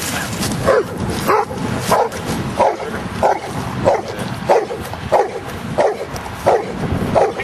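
Giant schnauzer barking steadily, about eleven barks at an even pace of roughly one and a half a second.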